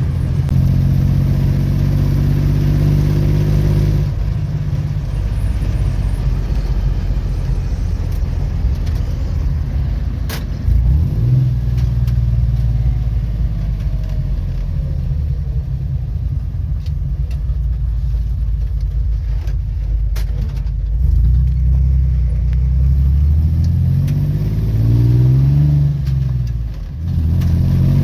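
1969 Jeep CJ5's engine running while driving, its pitch shifting several times as it speeds up and eases off, with a few quick rises and falls in revs toward the end.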